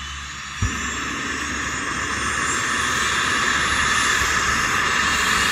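ADAC rescue helicopter starting up on the ground: a steady, high turbine whine that grows louder as the engines spool up and the rotor begins to turn. A lower rumble comes in suddenly about half a second in.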